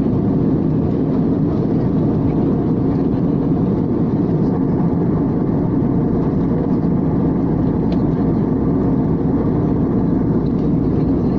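Steady roar of an airliner's cabin: jet engine and airflow noise heard from a window seat over the wing while the plane descends for landing.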